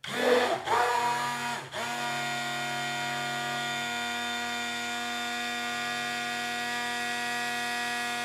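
Electric stick blender motor running in a bowl of liquid soap batter, blending it toward a cake-batter thickness. It starts up uneven and louder for the first couple of seconds, then runs at a steady pitch.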